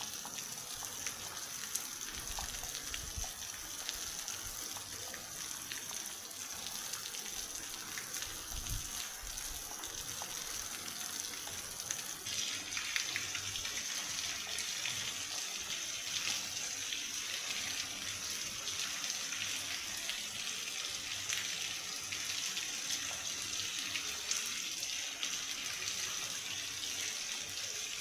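Heavy rain pouring down in a steady hiss that grows heavier about twelve seconds in.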